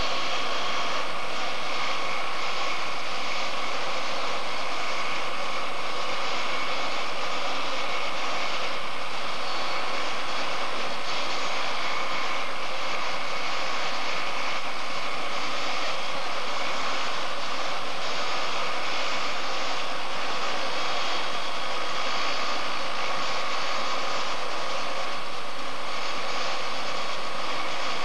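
Light turbine helicopter's engine running steadily on the ground: a constant whine over a rushing noise.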